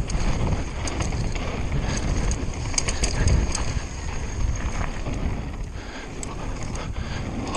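Conway WME mountain bike descending a downhill trail at speed: steady tyre and trail noise with scattered rattles and clicks from the bike, and wind on the microphone.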